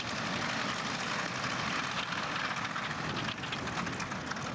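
Piston-engined propeller aircraft in flight, a steady engine drone with no rise or fall.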